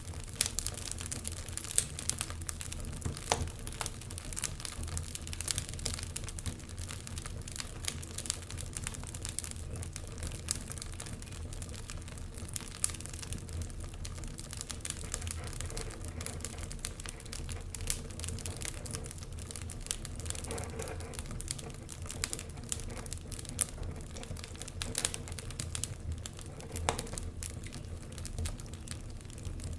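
Wood fire crackling in a fireplace: a continuous stream of small irregular crackles and snaps, with a few louder pops, over a low steady rumble of the burning fire.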